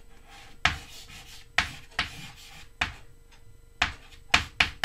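Chalk drawing on a chalkboard: a series of short scratching strokes and taps, irregularly spaced and coming faster near the end.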